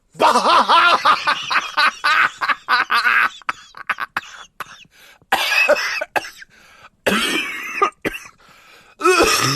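A person coughing in several loud fits, with throat clearing between them.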